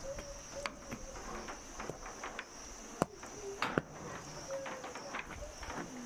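Steady high-pitched insect chorus, with a few sharp clicks and knocks scattered through it; the loudest click comes about three seconds in.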